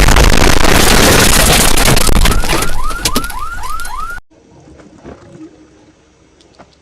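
A very loud, heavily distorted meme sound edit lasting about four seconds, with a quick run of short rising whoops in its second half, then cutting off suddenly to a low background.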